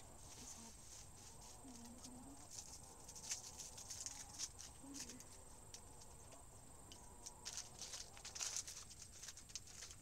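Faint rustling and light clicks of hands handling small objects and a plastic bag, busier about three to four seconds in and again near the end.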